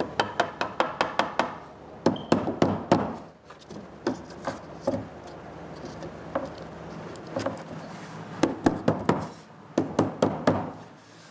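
Hammer driving 6-penny galvanized finish nails into pine boards: quick runs of sharp taps, several a second, in three bursts with a few single knocks between.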